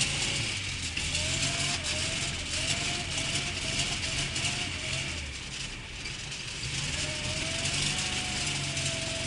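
A VAZ Zhiguli's engine running at high revs, its pitch wavering up and down, over a steady hiss. The revs drop away about five seconds in, then climb back and hold.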